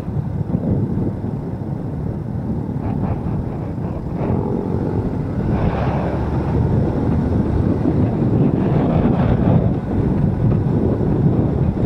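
Wind rushing over the microphone of a moving motorcycle, with engine and road noise mixed in underneath, growing a little louder after about four seconds.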